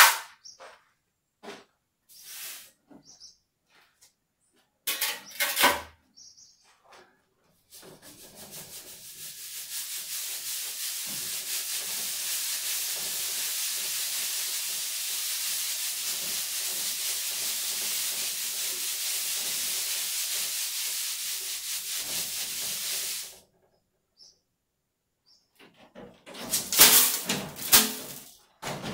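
Sand being shaken through the mesh of a hanging round sieve: a steady hiss of sand sifting through and pouring onto the pile, lasting about fifteen seconds. Short, louder scrapes come before and after it.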